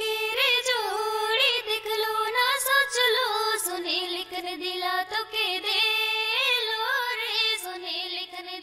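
A woman singing a Sarhul festival song in a high voice, the melody bending and ornamented.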